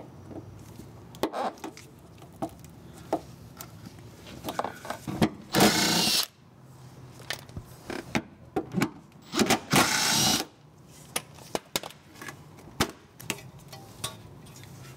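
Power ratchet spinning out the 12 mm bolts of an underbody plate in two short bursts, amid the clicks and clatter of tools being handled.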